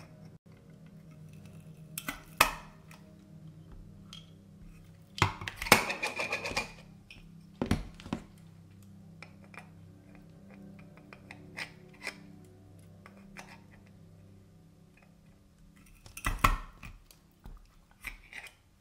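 Sharp clicks and clatter of a Crop-A-Dile hole punch being handled and squeezed to punch holes through chalkable chips, with the longest burst about five seconds in. Background music plays throughout.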